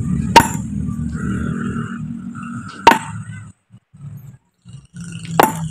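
Sledgehammer striking a large boulder to split it by hand: three sharp blows of steel on stone, about two and a half seconds apart, each ringing briefly.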